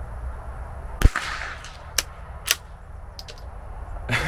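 .22 rimfire rifle firing a single shot: one sharp crack about a second in. A few lighter clicks follow over the next two seconds.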